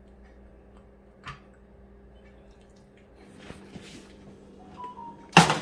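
Faint wet dripping and squishing from marinated chicken pieces, with a small click about a second in. Near the end, a sudden loud metallic clatter as the wire rack and foil-lined tray are handled at the countertop oven.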